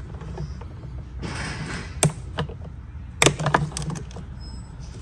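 Plastic wiring-harness connectors on snowmobile ignition coil wires being unclipped by hand, a pick tool pressing the release tang: a few sharp clicks and rattles, one about two seconds in and a small cluster a second later.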